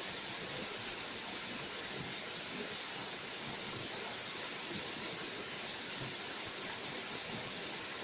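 Small waterfall cascading in thin streams over a rock face: a steady, hissing rush of falling water that never changes.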